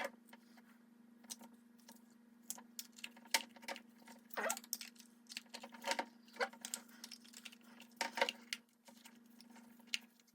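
Bicycle chain links clinking and plastic clicking as the chain is handled and worked into a Park Tool chain scrubber with solvent: irregular sharp clicks, sometimes several a second, with pauses between.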